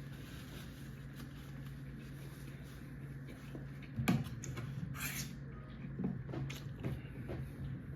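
A person eating quietly: chewing with a few soft clicks, a sharper click about four seconds in and a short rustle just after, over a low steady hum.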